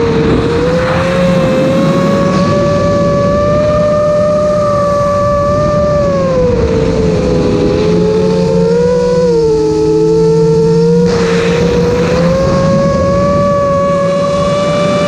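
Electric motors of a camera-carrying FPV drone whining steadily, the pitch rising and falling with throttle, over rushing wind noise. A second, lower motor tone joins for a couple of seconds about nine seconds in.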